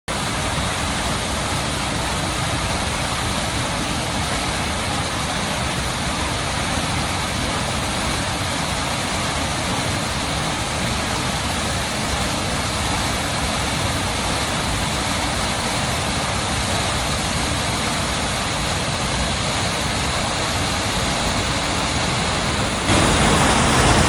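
Waterfall rushing steadily, an even roar of falling water that gets louder near the end.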